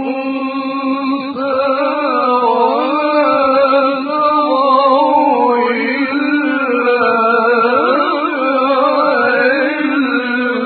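A male Quran reciter chanting in melodic tajweed style. It is one long unbroken phrase with wavering, ornamented pitch glides, and it ends abruptly.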